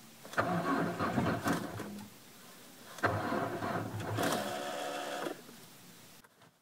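A Peugeot's starter motor cranking the engine on a cold start, twice in a row, about two seconds each with a short pause between; the engine does not catch either time.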